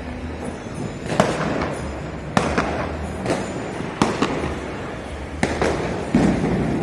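Diwali firecrackers going off one after another, sharp bangs about one or two a second, each trailing an echo.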